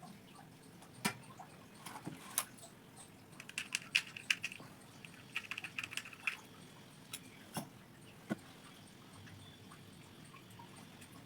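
Scattered sharp clicks and taps of small hard objects being handled, with two runs of quick light clicking about three and a half and five and a half seconds in.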